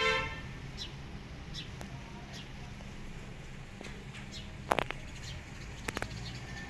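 A newborn kitten gives one short mew right at the start, the loudest sound here. Faint high chirps repeat throughout, and a few sharp clicks come near the five- and six-second marks.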